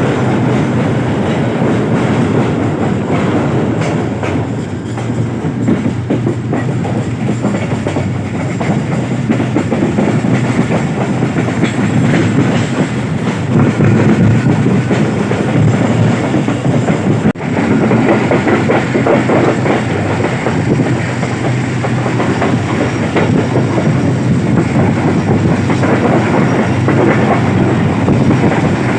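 Moving passenger train's coach wheels clattering over the rail joints with a continuous rumble and rattle at speed. The sound drops out for an instant about 17 seconds in.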